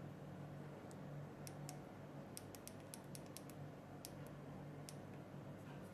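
About a dozen small, sharp clicks, several in a quick run near the middle, from an eGo-type e-cigarette battery being handled as its iClear 30 clearomizer is fitted.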